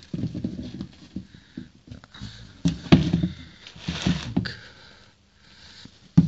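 Irregular knocks, scuffs and rustles from handling under the car, coming in clusters with short lulls between them and the sharpest knocks about three seconds in.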